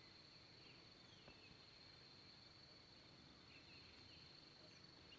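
Faint outdoor ambience: a steady high-pitched hum with a few short, falling bird chirps, and a single faint tap about a second in.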